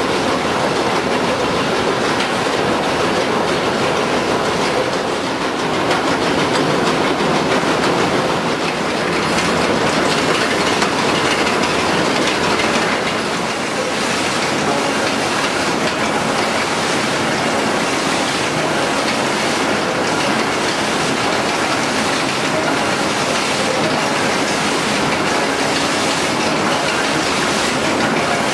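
HewSaw R200 chipper-canter sawmill line running, a loud, steady mechanical din with a continuous rattle and no pauses.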